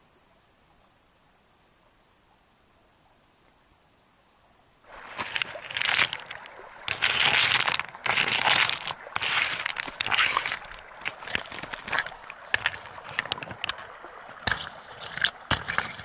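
Quiet for about five seconds. Then river stones clack and knock against each other and gravel crunches under them, in irregular bursts of sharp clicks, as stones are set in place one by one to build a primitive stone stove.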